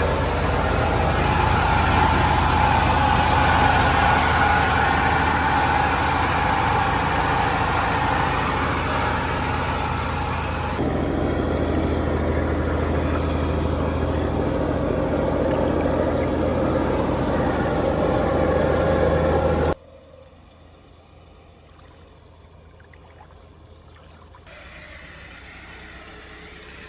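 Tractor diesel engines running steadily and loudly. About twenty seconds in, the sound cuts abruptly to a much quieter, more distant engine.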